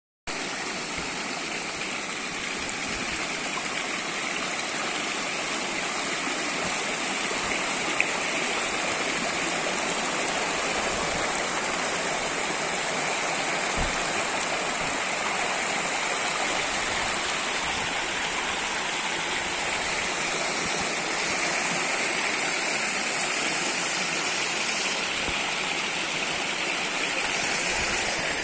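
Spring water gushing from a long row of pipe spouts and splashing into a concrete channel: a steady rush and splash of many falling streams.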